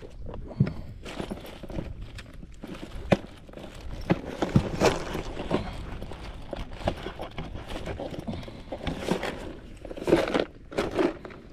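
Scattered, uneven knocks and clicks, some sharp, with rustling between them.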